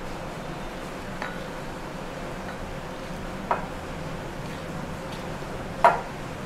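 Metal spoon stirring semolina batter in a glass bowl, clinking against the glass three times, the last one, near the end, the loudest, over a steady background hum.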